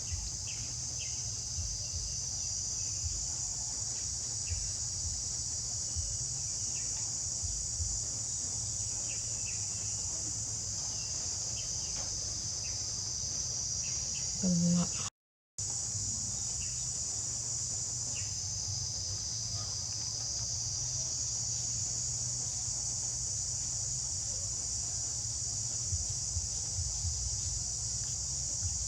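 Insect chorus chirping, a continuous high buzz that slowly swells and fades, over a low steady hum. About halfway through there is a brief pitched vocal sound, then the audio drops out for a moment.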